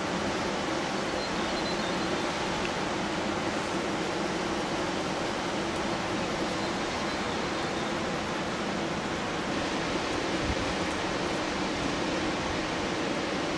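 Steady, even rushing noise, like distant running water, with no distinct events.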